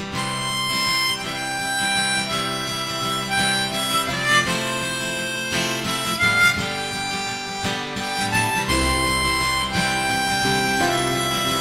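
Instrumental intro of a slow ballad played live: acoustic guitar accompaniment under a lead melody of held, reedy notes. A deeper bass line comes in about three quarters of the way through.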